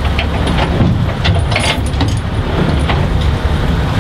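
A boat's engine runs steadily under way, with scattered sharp clinks and rattles from the cable and fittings being paid out over the stern.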